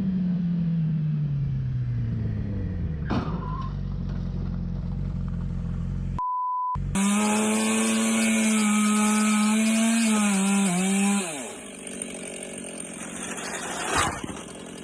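A chainsaw running at high revs for about four seconds, then revving down and dropping away. Before it, a motor note falls in pitch, and a short single-tone bleep sounds.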